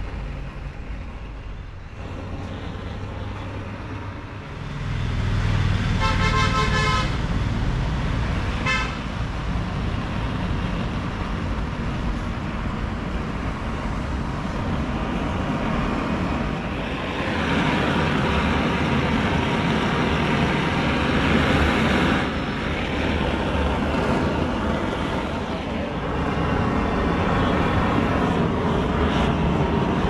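Gas blowtorch flame hissing steadily as it scorches the surface of a wooden carving. It gets louder about four to five seconds in and again around seventeen seconds, as the flame is played over the wood.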